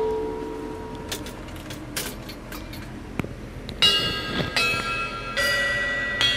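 Improvised percussion on struck objects: a ringing tone dies away over the first second and a few light taps follow. Then four bell-like ringing strikes come about a second apart in the second half.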